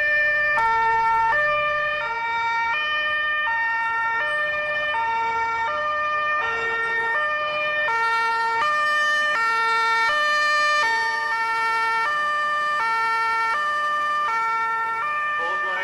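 Airport crash tender's two-tone siren sounding steadily, alternating between a low and a higher note about every half second.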